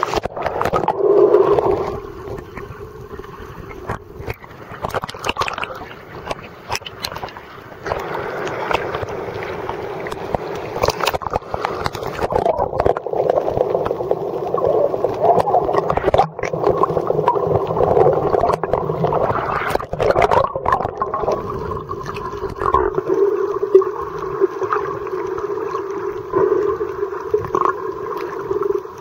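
Muffled underwater sound from a camera held below the surface while snorkelling: gurgling, sloshing water with scattered clicks over a steady low hum.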